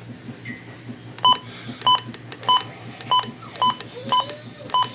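Weather radio's button beeps as its keys are pressed: seven short, identical high beeps about half a second apart, starting about a second in, over a low steady hum.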